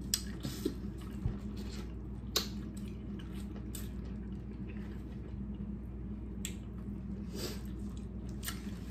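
Wet chewing and lip-smacking from people eating corn on the cob and shellfish by hand: a handful of short, sharp wet smacks at irregular intervals over a steady low hum.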